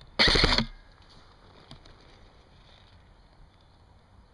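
A short burst of full-auto fire, about half a second long, from an airsoft electric gun, the player's own JG MP5 SD6, heard as a quick string of closely spaced shots.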